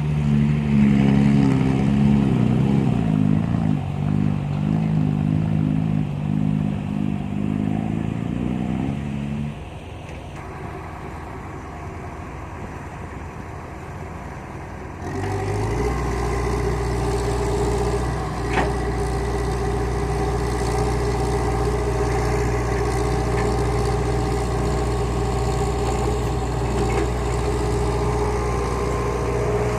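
Heavy diesel machinery at work: an engine running loudly with its pitch shifting under load, easing off about nine seconds in. About fifteen seconds in the sound changes abruptly to a steady, deeper diesel engine running evenly, with one sharp click a few seconds later.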